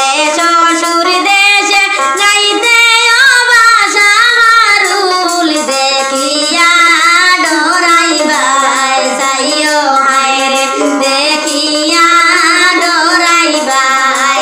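A woman singing a Sylheti wedding song (biyer gaan) with musical accompaniment, in long held, wavering notes.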